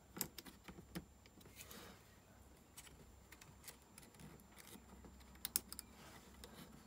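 Faint, scattered small clicks and taps of a thin tool and fingertips working the screen's ribbon cable into its connector on a rowing-machine monitor's circuit board and plastic case, the sharpest pair about five and a half seconds in.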